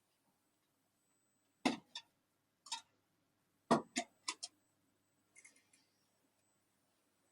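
Several sharp clicks and knocks in uneven groups as the cover over a fiber laser cutting machine's cutting head is unlatched and opened.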